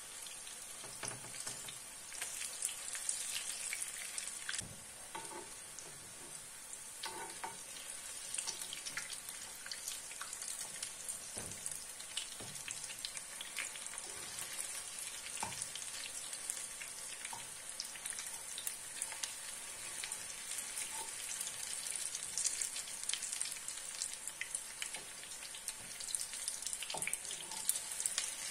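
Onion patties frying in hot oil in a pan: a steady sizzle full of fine crackling and spitting. A few soft knocks sound as the patties are turned with a spatula and fork.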